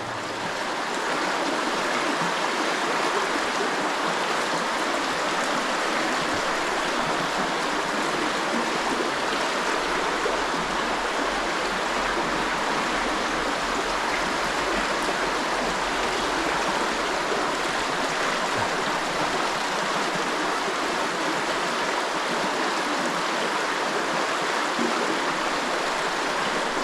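Small mountain creek running steadily over rocks, a constant rush of flowing water.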